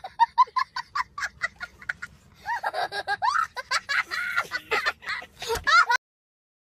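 High-pitched cackling: quick even pulses, about seven a second, for two seconds, then warbling, squealing glides. It cuts off sharply about six seconds in.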